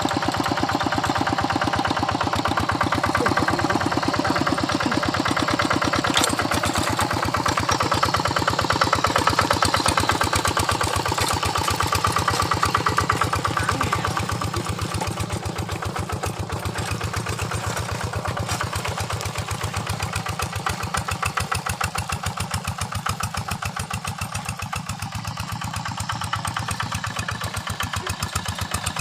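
Single-cylinder engine of a Quick Impala two-wheel hand tractor running steadily, with fast, even firing pulses; it gets a little quieter about halfway through.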